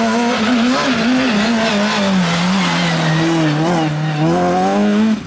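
Abarth Grande Punto rally car's engine running hard through a hairpin, its pitch dipping as it slows into the turn and climbing again as it accelerates out.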